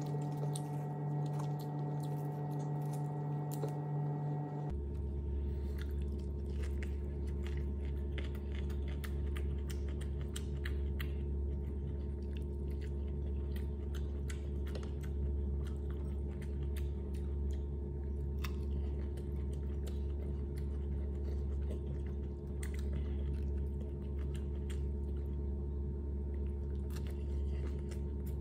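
Close-up chewing and crunching of food, with short clicky bites throughout. A steady low hum runs underneath and shifts to a deeper pitch about five seconds in.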